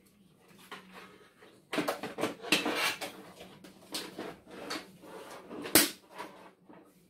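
Hard plastic parts of a Paw Patrol Super Mighty Pups lookout tower toy being handled and pressed together: a burst of rattling and knocking, then a few scattered clicks and one sharp snap, the loudest.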